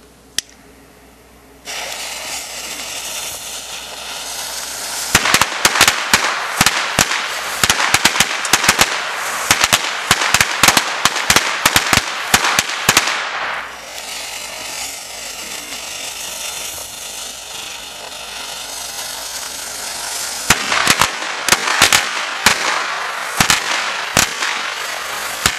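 A hanging string of Shogun flashlight firecrackers going off. A steady hiss starts about two seconds in. Rapid, irregular sharp bangs begin about five seconds in, give way to several seconds of steady hiss around the middle, and start again for the last five seconds.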